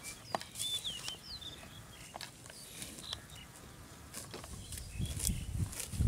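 Water buffalo grazing, tearing and munching dry straw and grass, heard as scattered crackles and rustles. A few short bird chirps about a second in, and low thuds near the end.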